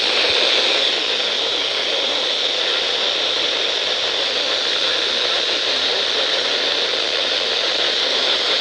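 Steady hiss of radio static: a receiver putting out noise with no programme audio.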